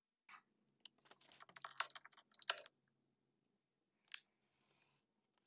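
Light clicks and taps of a smartphone being set into a small popsicle-stick stand on a hard tabletop: a quick run of taps over the first few seconds, two of them louder, then one more click near the end.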